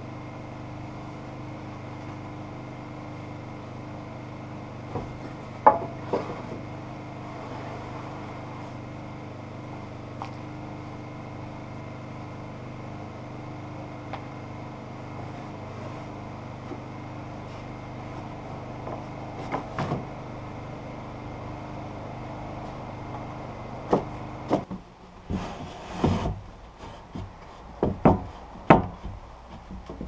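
Wooden shiplap floorboards being handled and set in place: occasional wood-on-wood knocks over a steady mechanical hum. Near the end the hum stops and a quick run of sharper knocks and thumps follows.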